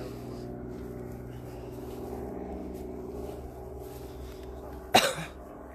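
A steady, low engine drone made of several even tones, which was taken earlier for a police helicopter overhead, with soft swishing of steps through long grass. About five seconds in comes a single sharp knock.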